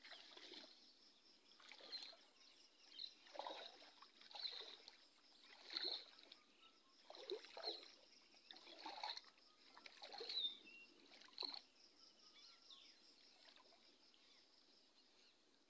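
Faint splashing and sloshing of shallow water as a person wades through a flooded rice paddy and handles a fishing net, about one splash a second, dying away in the last few seconds.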